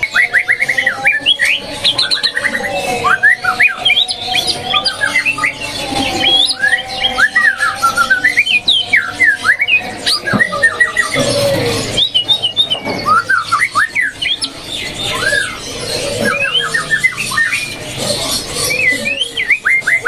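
Male white-rumped shama (murai batu) singing a long, varied song of quick chirps, rapid runs of repeated notes and slurred whistles, starting up after its cage cover is lifted.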